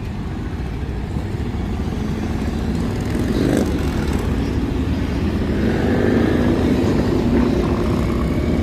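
A procession of motorcycles riding past, their engines rumbling steadily and growing louder.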